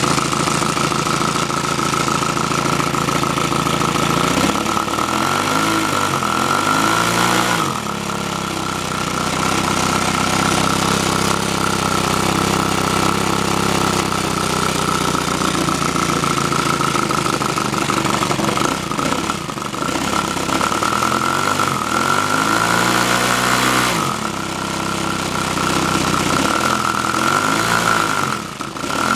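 A 65 cc three-cylinder five-stroke model engine running, its centre cylinder working on the exhaust gas of the two outer cylinders. Its speed falls and picks up again three times.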